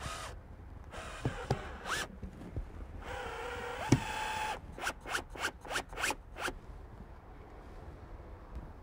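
Cordless drill/driver driving a screw through a storm door's drip cap into the door casing. The motor runs in a steady whine for about a second and a half, then comes a quick run of short bursts as the trigger is pulsed to seat the screw.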